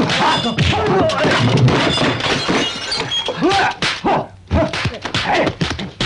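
Kung fu fight sound effects: a fast series of punch and block impacts, mixed with the fighters' shouts and grunts.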